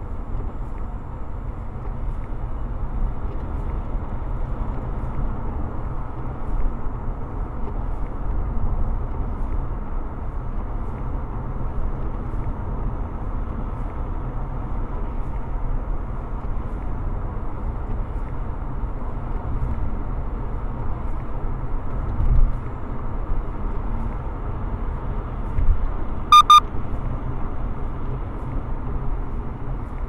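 Steady road and tyre noise with a low engine rumble inside a car's cabin on wet pavement, picked up by a dashcam's microphone. There is a single low bump about 22 seconds in, and two quick, high electronic beeps a few seconds later.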